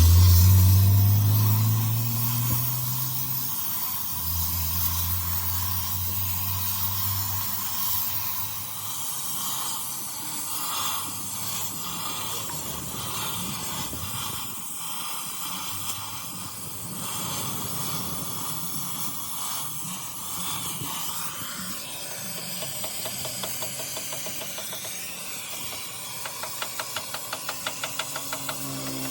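A vehicle engine rising in pitch over the first few seconds, then running steadily for a few more before fading under a steady hiss. Near the end comes a quick run of ticks, about five a second.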